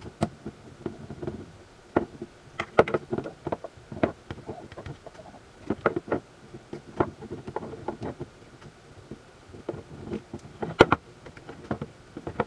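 Irregular light metal clicks and taps from a hex driver working the set screws of a GT2 pulley on a stepper motor shaft, with the motor handled and set against the wooden bench; one sharper knock near the end.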